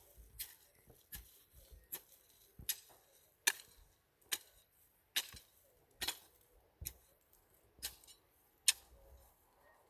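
A digging tool striking the ground over and over as soil is dug and heaped for planting: sharp strikes in an even rhythm, a little more than one a second.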